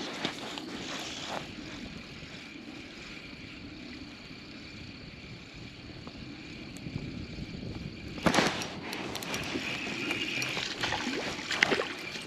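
Spinning reel being cranked as a small hooked crappie is reeled in to a kayak. About eight seconds in it turns louder, with a spell of sharp splashing and rattling as the fish comes up at the surface.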